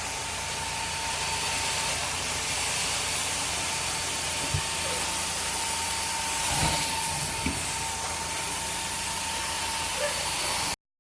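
Carpet cleaning machine running with a steady hiss and a thin, steady whine, with a few faint knocks; the sound cuts off abruptly near the end.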